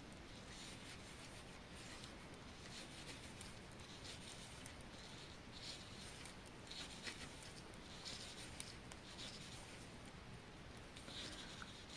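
Two knitting needles working yarn stitch by stitch: faint, irregular short scrapes and light clicks.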